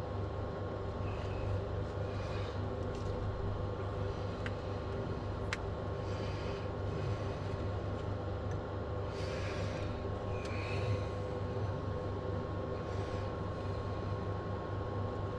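A steady hum with a constant high whine, under faint scrapes and a few small clicks of a tool prising a dust-seal cap out of a dirt bike's linkage bearing.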